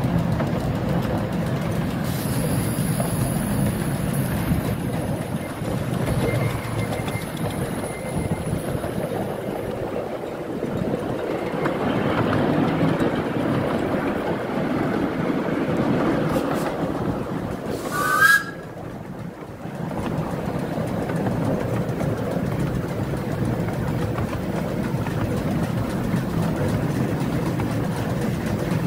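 10¼-inch gauge miniature steam train running along the track, with a steady rumble and rattle of the locomotive and carriages. About two-thirds of the way through there is one brief sharp sound, after which the running sound is quieter for a second or two.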